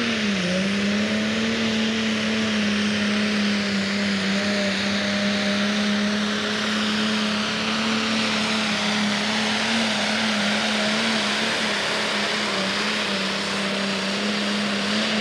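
A turbocharged diesel Pro Stock pulling tractor runs at full throttle while hauling the weight-transfer sled down the track. Its engine note holds steady after a brief dip just after the start, then drops away at the very end as the throttle comes off.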